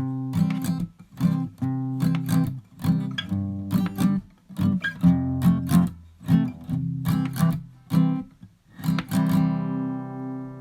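Background music of strummed guitar: a steady rhythm of chords, with a last chord struck a little after nine seconds in that rings on and fades away.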